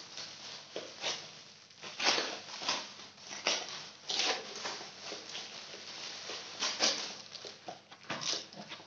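Plastic packaging crinkling and rustling in short, irregular bursts as a parcel is unwrapped by hand.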